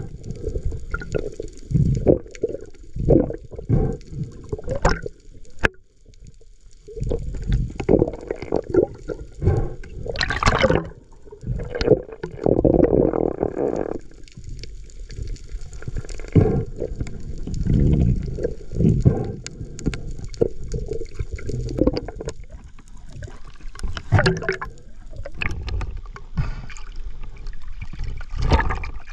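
Seawater sloshing and gurgling in irregular, muffled surges, with a few sharper splashes.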